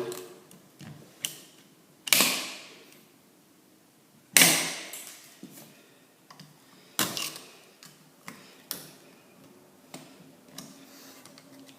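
Irregular sharp clicks and knocks as an old push-button wall switch is worked loose from its electrical box, with two louder knocks about two and four seconds in.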